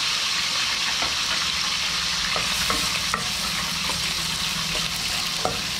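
Cooking oil sizzling steadily in a frying pan as food fries, with a few light clicks of a utensil against the pan.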